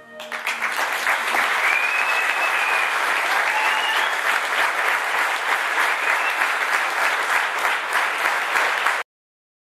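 Audience applause breaks out as the band's last note dies away and continues steadily. About a second before the end, it cuts off suddenly.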